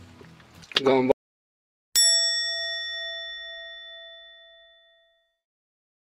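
A loud shout that cuts off abruptly about a second in, then a single struck bell chime sound effect that rings out with a slight wavering and fades away over about three seconds.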